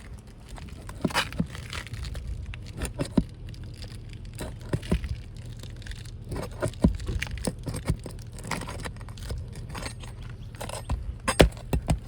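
Scraping, clicks and sharp knocks of a pry bar working nails loose and the old asphalt shingle being pried free from under the shingles above, over a steady low rumble.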